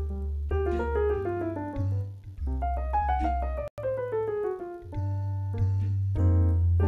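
Keyboard with a piano sound playing a bossa nova arrangement: quick falling runs of notes over a sustained deep bass, with a brief dropout just under four seconds in.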